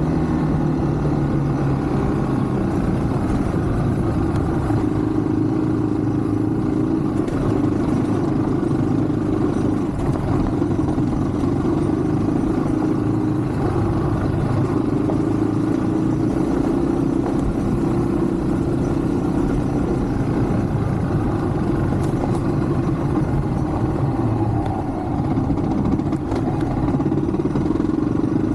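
Yamaha WR155 enduro motorcycle's single-cylinder engine running steadily while riding, its pitch drifting a little up and down with the throttle.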